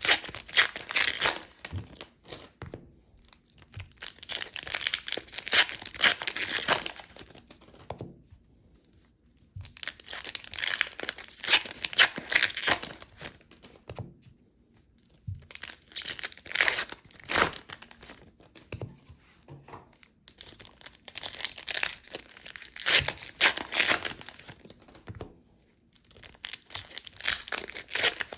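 Plastic and foil wrapping of an Artifacts hockey card box being torn open and crinkled by hand, in several spells of a few seconds each with short pauses between.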